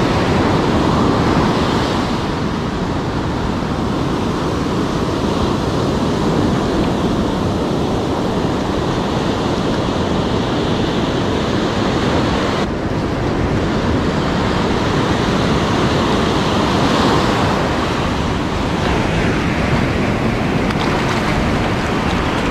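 Ocean surf breaking and washing up a sandy beach, a steady rush of noise, with wind on the microphone.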